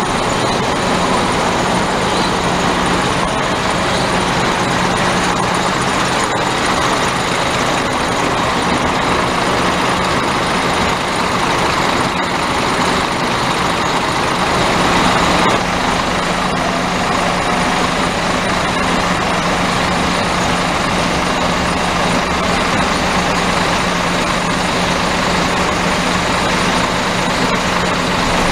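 Diesel coach engines idling at close range, a steady, even noise with a constant low hum.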